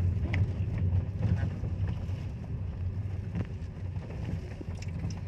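Car driving over a rough, damaged road, heard from inside the cabin: a steady low engine and tyre rumble with a few light clicks and rattles from the bumps.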